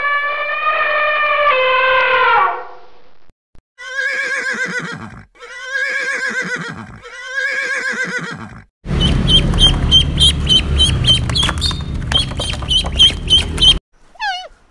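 A string of separate animal calls cut one after another. First comes a long pitched call that drops in pitch at its end, then three wavering bleat-like calls, then a noisy stretch of rapid repeated chirps, and short falling chirps near the end.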